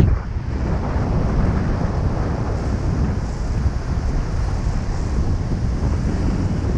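Steady wind rushing and buffeting over the camera microphone as a paraglider flies just after launch.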